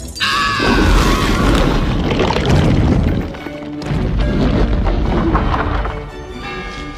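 Loud film-score music with deep booms and crashes, starting suddenly a fraction of a second in: the soundtrack of a giant peach rolling away and smashing what lies in its path.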